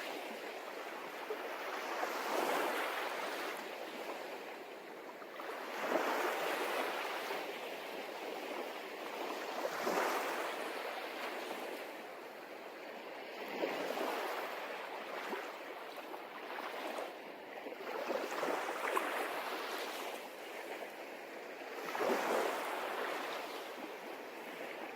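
Sea waves washing in and drawing back, a rushing swell that rises and falls about every four seconds.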